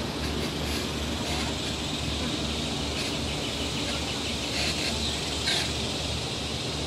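Wheelchair rolling along a brick-paver path: a steady low hum with rattle, and a few short high sounds about five seconds in.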